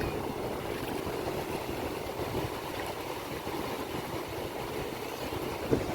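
Sea waves washing onto a beach, a steady rushing noise, with some wind on the microphone.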